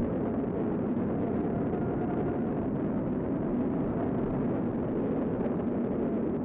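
Steady roar of tornado wind, an even rushing noise that doesn't let up.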